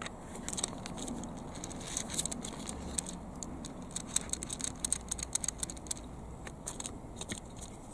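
Quiet, irregular clicking and light rattling of a small Tamiya plastic gearbox and its wheel axle as the tractor wheel is turned by hand to try the fit.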